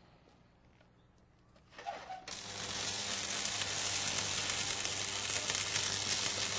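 Electric arc welding: the arc strikes with a few crackles about two seconds in, then settles into a steady, loud sizzling hiss with a low hum under it.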